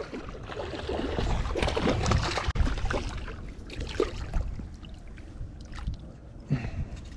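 Water splashing as a hooked bass thrashes at the surface while it is reeled in, loudest in the first three seconds, with wind rumbling on the microphone.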